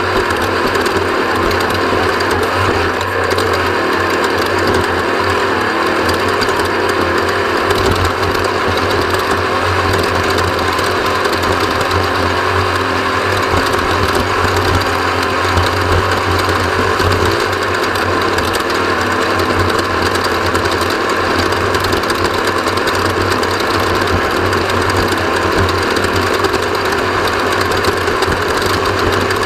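Off-road race vehicle's engine running steadily at speed, a loud even drone with no let-up.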